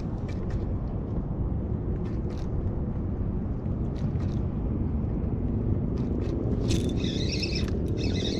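Steady low wind rumble on the microphone, with a few faint ticks from a spinning reel as line is wound in against a hooked fish. Near the end a wavering high-pitched sound comes in.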